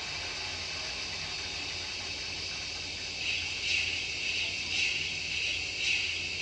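Model steam locomotive's DCC sound decoder playing a steady steam hiss. About three seconds in, slow chuffs begin at roughly one a second, as the locomotive starts moving slowly.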